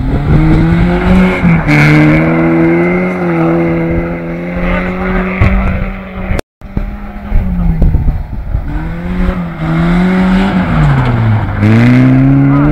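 Volvo 360 rallycross car's engine revving hard through a gravel corner, its pitch holding, dipping and climbing again as the throttle is lifted and reapplied. A brief cut-out about halfway through, then a car accelerating again, its pitch falling sharply and climbing near the end.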